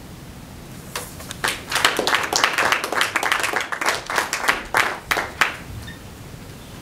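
Small audience applauding: hand claps start about a second in, build to a dense patter and die away after about four and a half seconds.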